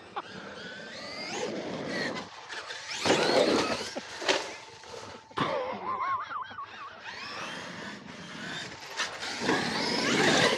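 Electric RC monster trucks running on a dirt track, their brushless motors whining up and down in pitch with the throttle over tyre and dirt noise, with a few louder bursts.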